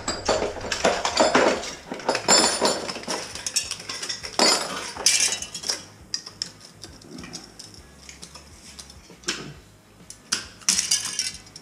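Light metal clinking and scraping in irregular bursts: small metal parts and hand tools being handled. The bursts are loudest in the first few seconds, thin out in the middle, and pick up again near the end.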